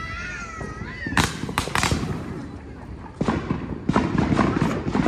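Consumer fireworks going off: a few sharp bangs about a second in, then a dense run of crackling in the second half. A wavering high whistle opens the sound.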